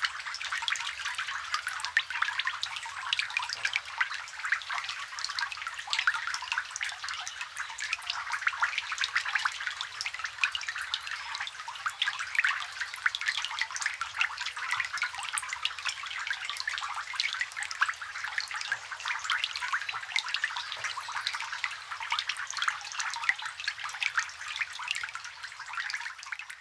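Rain falling on a water surface, heard close up: a dense, steady patter of many small drops splashing, fading out at the very end.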